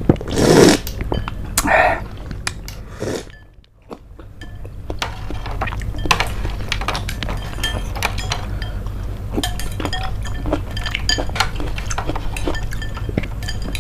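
Metal spoons clinking and scraping against a bowl and a plate while scooping jelly and milk soup: many short sharp clicks, with a slurp from a spoon in the first second or two.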